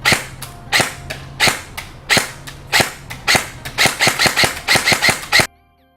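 A string of about twenty single gunshots, spaced at first and coming faster toward the end, then stopping suddenly.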